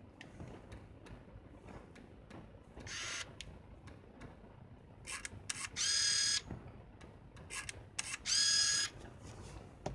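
Canon Autoboy A compact film camera's zoom lens motor whirring in short runs: a brief whir about three seconds in, then two longer, steady-pitched whirs near the middle and toward the end, with small mechanical clicks between them.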